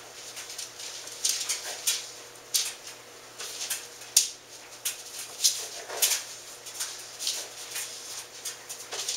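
Kitchen knife cutting soft sweet-roll dough into pieces on a cutting board: irregular short taps and scrapes, about one or two a second, over a faint steady hum.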